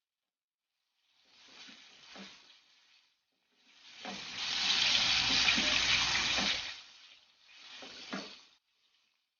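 Pompano frying in hot oil in a pan, sizzling and crackling. It comes in three stretches that each cut off abruptly to silence, the longest and loudest in the middle.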